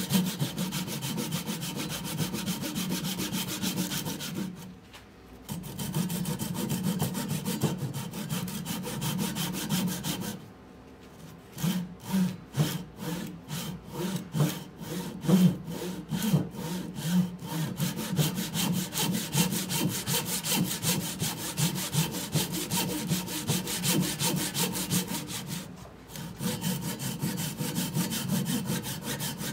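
Hand saw rip-cutting down along the grain into the end of a birch log, a steady run of quick back-and-forth strokes. It stops briefly about five seconds in, again about eleven seconds in, and once more near the end. After the second stop the strokes come slower and louder for several seconds before the quick rhythm returns.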